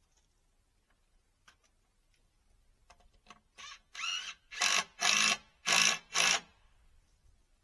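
A small electric motor, like a drill or driver, whirring in about six short bursts that grow louder, then stopping.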